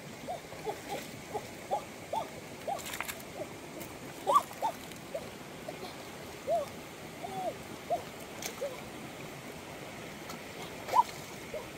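Short, chirping animal calls repeat irregularly, about twice a second, over the steady sound of stream water running, with louder calls about four seconds in and near the end. A couple of light knocks or splashes from a stick being worked in the water fall in between.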